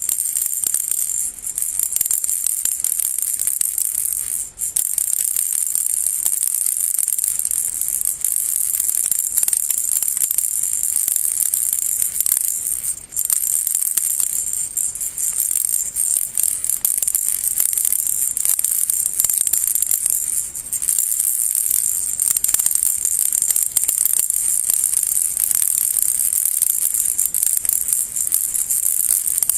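Baby rattle shaken nonstop, a dense, high, hissing rattle, with brief breaks about four and a half and thirteen seconds in.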